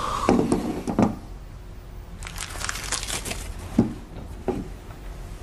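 Hands handling something: a crackly rustling and crinkling stretch in the middle, with a few soft knocks at the start and twice near the end.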